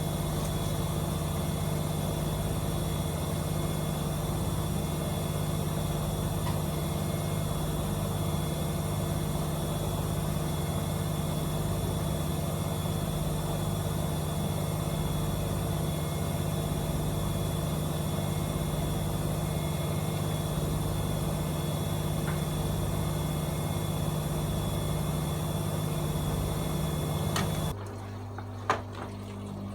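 AEG Öko-Lavamat 74780 washing machine running with a steady motor hum and whine until its motor cuts out abruptly near the end, followed by a single click while a lower hum carries on.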